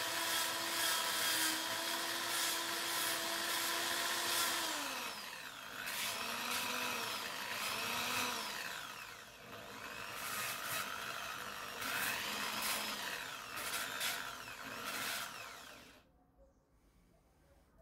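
Electric drill in a drill press spinning a sanding pad against a small wooden track link. The motor runs at a steady pitch, winds down about four seconds in, then speeds up and slows several times before stopping near the end.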